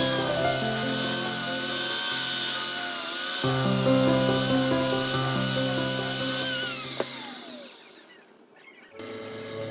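Wood lathe running with a steady high whine under background music. About seven seconds in the lathe is switched off and its whine falls in pitch as it spins down, the music dropping out too. The music starts again near the end.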